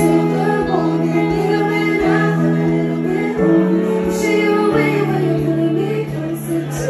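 A woman singing live over sustained chords that change every second or two, in a slow, stripped-back arrangement.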